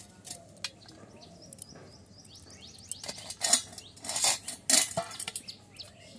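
A steel plate clinking and scraping as banana flower florets are handled and cut over it, with a few sharp, loud clinks about three to five seconds in. Birds chirp faintly.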